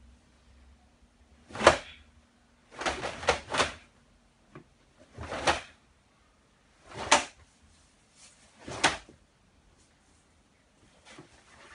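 Sharp cracks of a karate uniform snapping with fast strikes during a Goju-ryu kata, mixed with feet hitting the mat. About six cracks come a second or two apart, one of them a quick burst of three, with fainter ones near the end.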